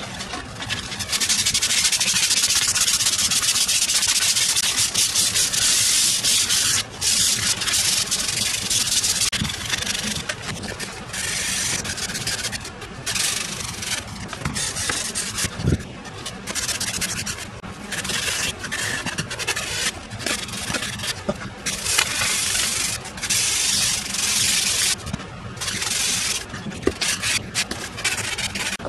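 Sandpaper rubbed by hand over the dry, worn wood of an old fireplace bellows paddle. A steady scratchy rasp runs for the first several seconds, then breaks into short strokes with brief pauses between them.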